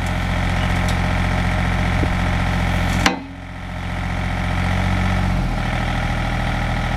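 2004 John Deere 27CZTS mini excavator's diesel engine running steadily, with a sharp clunk about three seconds in followed by a brief drop in level. The engine note steps slightly lower near the end.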